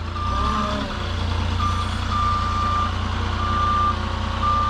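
Forklift reversing alarm beeping at a single pitch, roughly once a second, over the steady low drone of the machine's engine running.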